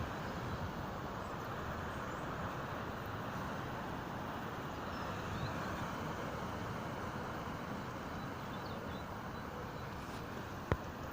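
Sea waves washing against the shore in a steady roar, with faint bird chirps and one sharp click near the end.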